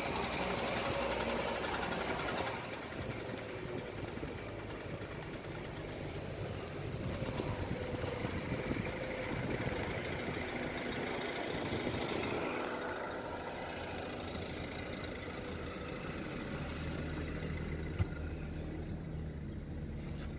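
Car with a seven-speed DSG gearbox running at low speed with a rattling knock, loudest in the first couple of seconds. The noise came from a worn outer CV joint on the left driveshaft, not the gearbox.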